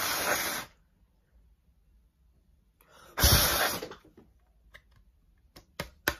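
Two puffs of breath blown hard onto a heated half of a CD, hitting the microphone as rushing gusts, one at the start and one about three seconds in. A few small clicks near the end.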